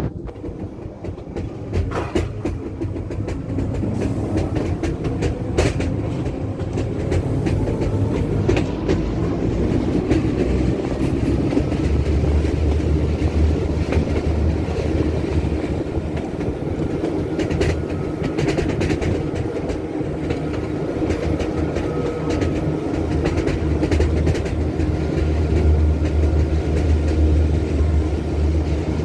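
Appenzeller Bahnen metre-gauge electric train running along the line, heard from an open carriage window: a steady rumble of wheels on rail with scattered clicks, growing louder over the first several seconds.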